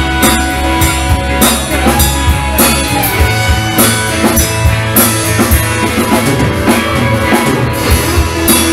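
Band music with drums and guitar keeping a steady beat.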